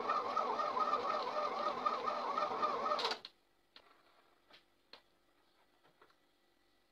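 Electric stand mixer running with its dough hook kneading a stiff dough in a steel bowl: a steady motor whine with a wavering pitch. It cuts off about three seconds in, leaving only a few faint clicks.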